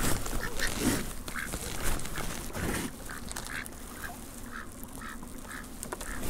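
Ducks calling with a run of short quacks, about two or three a second.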